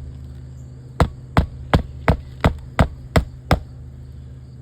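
Hammer driving a roofing nail through an asphalt shingle into the roof decking: eight sharp blows about three a second, ending near the middle.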